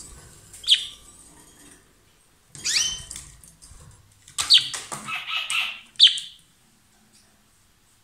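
Rosy-faced lovebird giving loud, shrill calls in four short bursts, each starting with a sharp downward-sweeping chirp. The third burst runs on into a rapid chatter of about a second.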